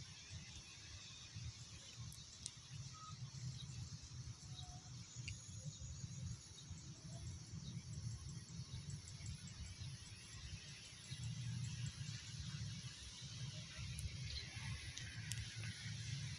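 Quiet lakeside ambience: a low, uneven wind rumble on the microphone under a faint high hiss, with a few faint clicks.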